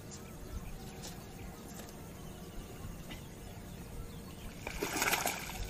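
Quiet open-air wetland background with faint bird chirps. About five seconds in, a short rush of noise from a lure-fishing cast with a baitcasting rod.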